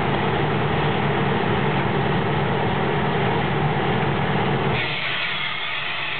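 English Electric DE-class diesel-electric locomotive's engine running steadily, heard close up. About five seconds in, the engine note drops and a hiss of air starts.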